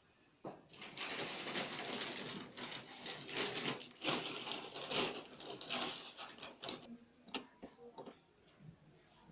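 Irregular scraping and rustling of washing-machine parts being handled and fitted back into place, ending in a few separate sharp clicks.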